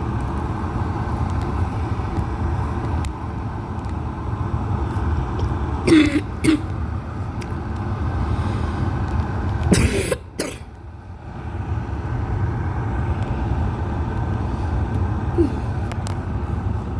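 Electric kettle heating water towards the boil, with a steady low rumble. Two short loud sounds break in about six and ten seconds in, and the rumble dips briefly after the second.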